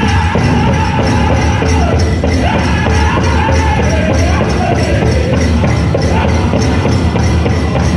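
Powwow drum group singing a men's chicken dance song over a fast, steady drumbeat, with the jingling of bells worn by the dancers.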